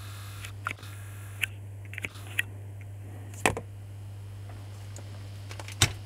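Short sharp metal clicks and knocks from handling and reassembling a washing-machine brushed motor, about six in all, the loudest two about three and a half seconds in and near the end, over a steady low hum.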